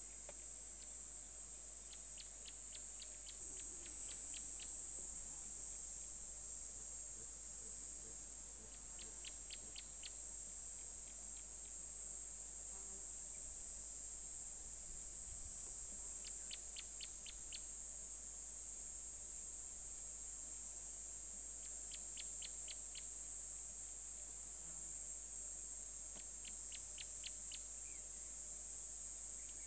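Steady high-pitched drone of insects, with short runs of five to seven quick ticking calls recurring every five to seven seconds.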